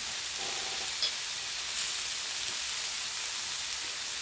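Food steadily sizzling in a frying pan on the hob, with a small click about a second in.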